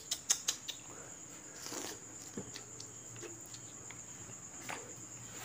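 Mouth sounds of a person chewing ripe mango slices: a quick run of wet clicks and smacks in the first half-second, then fainter scattered ones. Under it runs a steady, high, thin cricket trill.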